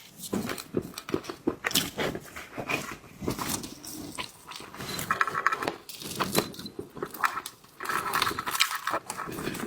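Close-up mukbang eating of shellfish: chewing and biting, with many sharp clicks and crunches. Twice, about five and eight seconds in, there is a brief higher-pitched sucking or squeaking mouth sound.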